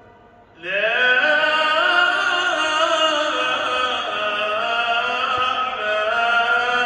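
A man's voice chanting in long, sliding, ornamented phrases. A new phrase starts abruptly about half a second in, gliding upward, and is held with wavering pitch.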